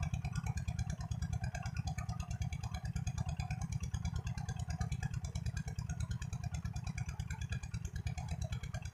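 Small engine running steadily nearby, with a rapid, even low thudding that does not change.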